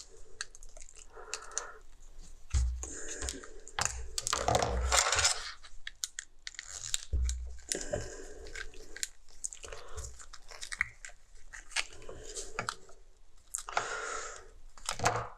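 Hand-tool work on a small plastic clock module: irregular clicks, scrapes and crunches of a screwdriver working tight little screws and plastic parts, with two dull thumps, about two and a half and seven seconds in.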